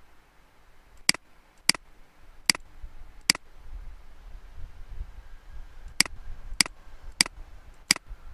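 Computer mouse clicking eight times, in two runs of four sharp clicks, each a little under a second apart, with a pause of over two seconds between the runs.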